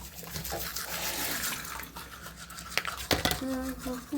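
Toothbrush scrubbing teeth, a scratchy, uneven brushing hiss. Near the end come a click and a short low tone.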